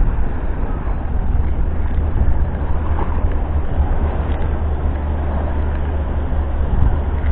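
Steady low wind rumble buffeting the microphone, over a constant hiss of surf.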